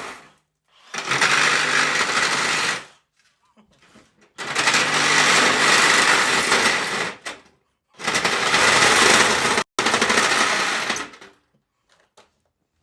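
Power saw cutting through old steel drain pipe in three runs of a few seconds each, starting and stopping abruptly.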